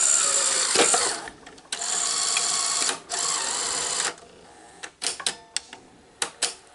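Sony SL-HF400 Betamax deck unloading and ejecting its tape: a motor-and-gear whirring in three runs over about four seconds, then a few clicks as the cassette housing lifts the tape. The mechanism runs with no grinding, its broken cassette housing part replaced.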